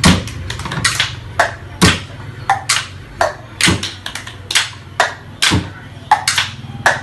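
Improvised percussion played on household objects: sharp knocks and taps about two a second in an uneven rhythm, some with a short ringing note that falls in pitch, over a steady low hum.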